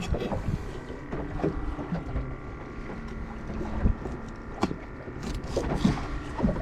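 A small fishing skiff sitting on the water, heard as a low steady rumble of wind and water with a faint steady hum. There are a few light knocks from gear against the boat, about four of them in the middle of the stretch.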